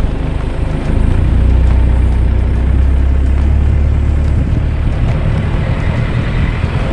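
4WD towing a camper on a sand track, heard from a camera mounted outside the car: steady engine, tyre and wind noise, with a heavy low rumble swelling about a second in and easing off after a few seconds.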